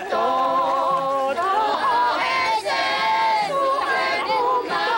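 A group of voices singing a song together in unison, holding long notes and sliding between them.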